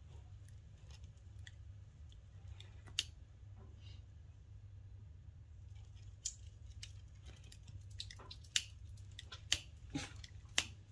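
Sharp clicks and knocks of kindling sticks being handled in the firebox of a small steel wood stove as a fire is lit: a handful of separate clicks, coming closer together and louder in the last few seconds, over a steady low hum.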